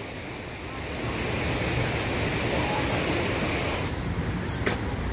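Steady rushing noise of floodwater running through a flooded street, with a faint low steady hum under it and two sharp clicks near the end.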